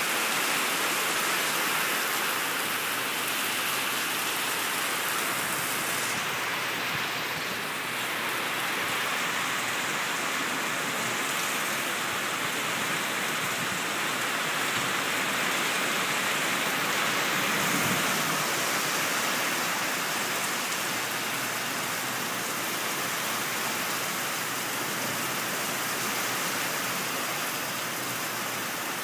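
Heavy rain pouring down steadily on wet concrete pavement, an even, unbroken hiss.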